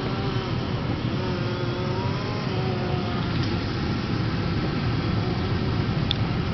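Steady engine and road noise of a car driving slowly, heard from inside its cabin, with a faint wavering engine tone over the first few seconds.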